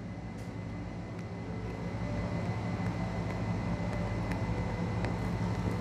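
A steady low mechanical hum that grows a little louder after about two seconds, with a few faint clicks, while tea concentrate is poured in a thin stream from a small steel pitcher onto ice in a glass of milk.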